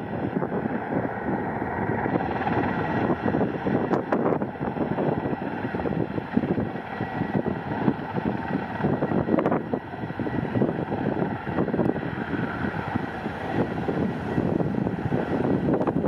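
Erickson S-64E Air-Crane heavy-lift helicopter hovering while it refills through its snorkel, its twin turbine engines and rotor running steadily with a constant whine. Gusty wind buffets the microphone.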